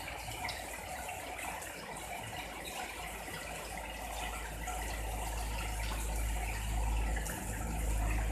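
Heavy rain pouring down steadily, with a low rumble of strong wind building and growing louder in the second half.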